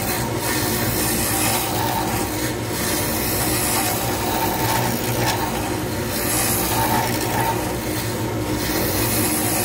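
Wood lathe running steadily while a hand-held turning tool cuts a spinning resin pen blank: a continuous scraping hiss over the motor hum, swelling and easing as the tool moves along the blank.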